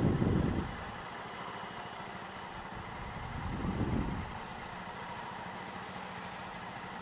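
Honda Africa Twin CRF1000L's parallel-twin engine idling in stop-and-go traffic. There are two brief low swells of sound, one at the start and another about four seconds in.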